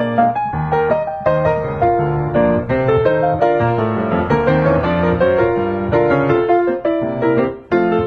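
Solo piano playing a lively ragtime tune, with a brief break in the notes near the end.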